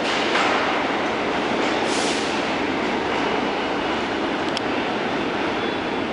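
R46 subway train pulling away down the tunnel: a steady, echoing running noise of steel wheels on rail, with a faint high wheel squeal in the middle.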